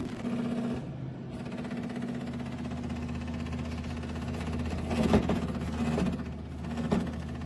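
A small motor humming steadily, with three brief louder knocks or rustles about five, six and seven seconds in.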